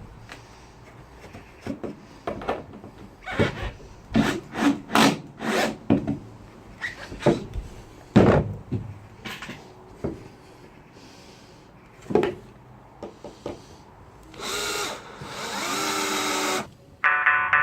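Power drill driving screws into wooden floor planks: a series of short, irregular bursts and knocks, then a longer run of about two seconds near the end.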